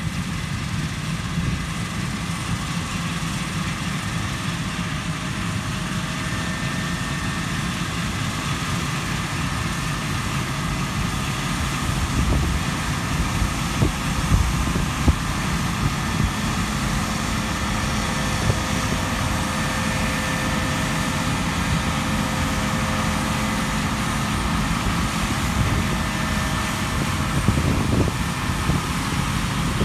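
Claas Lexion 8700 combine harvester running steadily while threshing wheat, its engine and threshing machinery making a constant drone. There are a few brief low thumps about halfway through.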